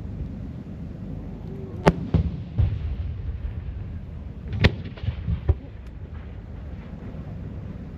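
Aerial fireworks shells bursting: two sharp bangs about three seconds apart, each followed by a few smaller thuds, over a steady low rumble.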